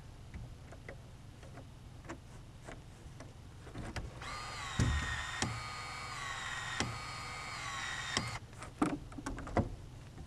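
Powered PEX expansion tool running for about four seconds, a steady motor whine that steps in pitch, with sharp clicks as its head expands a PEX pipe end and expansion ring; a few clicks and knocks follow.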